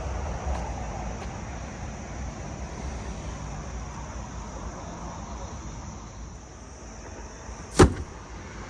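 Steady hum of a Tesla Model X's air-conditioning system running in the cabin during Supercharging, with one sharp click about eight seconds in.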